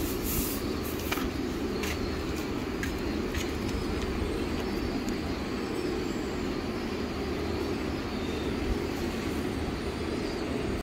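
Steady low mechanical rumble, with a few faint clicks in the first few seconds.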